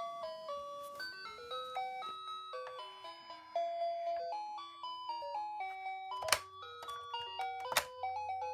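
Fisher-Price Loving Family toy van playing its simple electronic tune, one beeping note at a time stepping up and down in pitch. Two sharp plastic clicks from the toy being handled stand out, past the middle and near the end.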